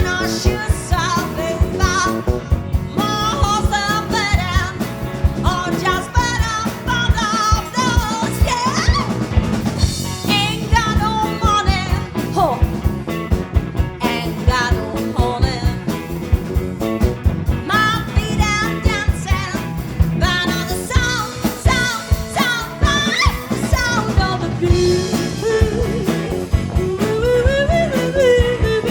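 Live blues band playing: drums keeping a steady beat under bass and guitar, with a bending lead melody on top.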